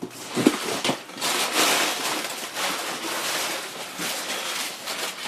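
Packaging rustling and crinkling as a shipping box is opened and the contents pulled out, with a few sharper rips and knocks in the first second and a half.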